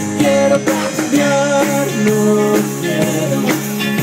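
Rock music with electric guitar and drums playing a steady beat.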